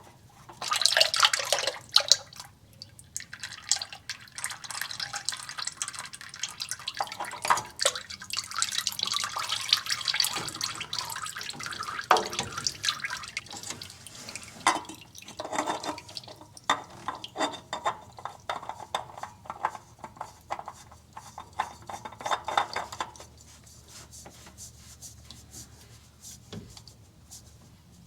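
Oil dripping and trickling, broken up by irregular clicks and knocks of handling, then quieter for the last few seconds.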